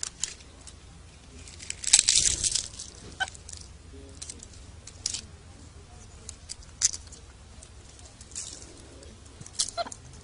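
Scattered rustles and small crackles as a capuchin monkey picks seeds from a hand through wire mesh, with a louder rustling burst about two seconds in.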